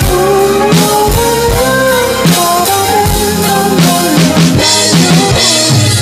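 Roland electronic drum kit played along to a rock band backing track: a steady kick and snare beat with rimshots over guitar and band melody.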